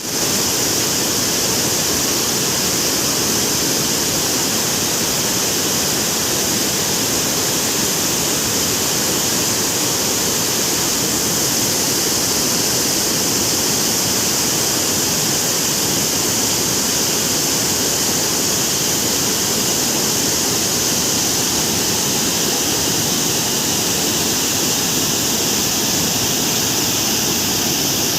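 Heavy rain falling in a steady, unbroken hiss that cuts in suddenly at the start.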